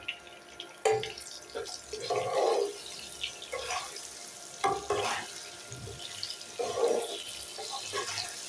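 Wooden spatula stirring whole hog plums around a nonstick wok in hot oil: irregular scraping strokes and wet, sloshing sizzles, with clicks of the spatula against the pan between them. A faint steady tone runs underneath.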